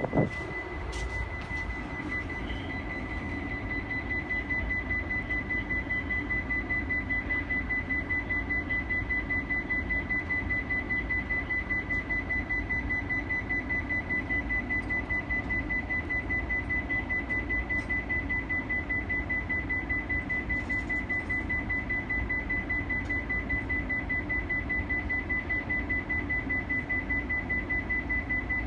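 High electronic alarm tone sounding continuously, pulsing rapidly and evenly, over the low steady hum of the stopped train.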